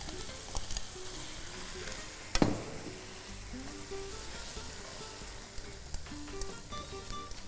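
Vermicelli and vegetables sizzling in a hot wok as they are tossed with tongs, with small scrapes and clicks. There is one sharp clank about two and a half seconds in.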